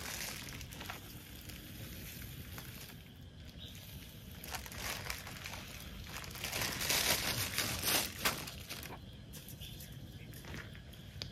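Packaging crinkling and rustling as it is handled, in irregular bursts with a few sharp clicks, busiest a little past the middle.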